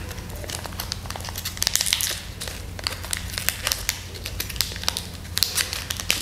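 Foil pouch of a COVID-19 rapid antigen test cassette being opened and crinkled in gloved hands: a continuous run of sharp crackles and rustles, busiest about two seconds in and again near the end.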